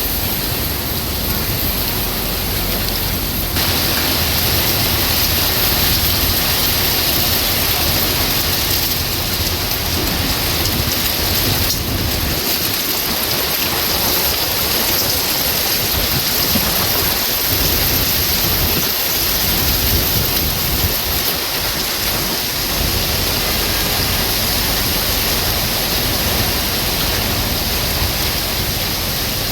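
Heavy thunderstorm rain pouring in a steady, dense rush, driven by strong wind. A low wind rumble underneath eases off for several seconds in the middle.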